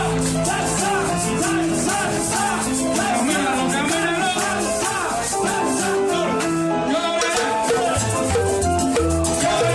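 Cuban son–salsa band playing, with maracas shaking steadily over a moving bass line and a melody line.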